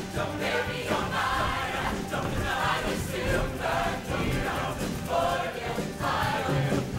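Mixed-voice show choir singing together in full ensemble over instrumental accompaniment.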